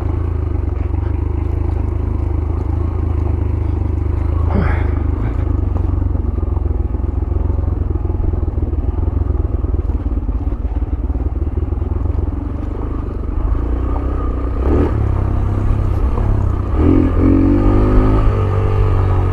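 Yamaha YBR 125G motorcycle's single-cylinder four-stroke engine running steadily while riding down a rough off-road track, with a wavering pitched sound near the end.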